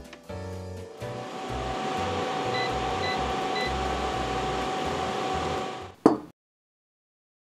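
Tefal Easy Fry & Grill air fryer's fan running with a steady whir and hum, with three short beeps from its touch control panel midway as the temperature and time are set. A sharp click just after six seconds, then the sound cuts off abruptly.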